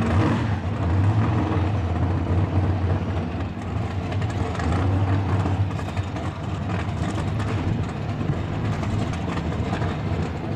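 Supercharged Holden Torana drag car's engine idling with a deep, steady rumble just after its burnout.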